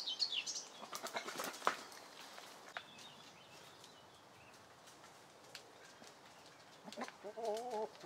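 Goats browsing in brush, with twigs and leaves rustling and snapping; a small bird chirps at the very start. Near the end a goat gives a single wavering, quavering bleat.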